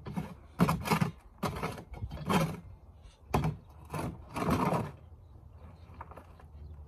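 A long-handled garden tool scraping and digging through compost in a wheelbarrow: about half a dozen rough strokes, one every half second to second, stopping about five seconds in.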